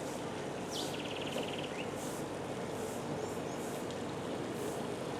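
Tropical rainforest ambience: insects calling in high pulses about once a second over a steady background hum, with a bird giving a quick falling whistle and a short rapid trill about a second in.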